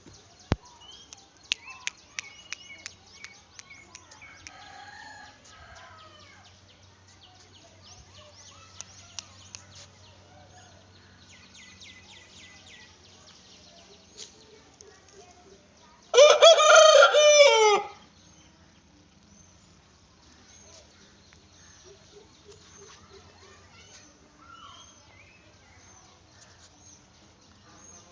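Rooster crowing once, loud, a little over halfway through and lasting under two seconds. Faint clicks and high chirps are scattered around it.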